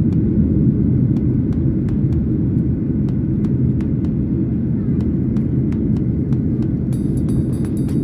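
Steady, even low roar of an airliner's jet engines and rushing airflow, heard from inside the cabin at a window seat while in flight.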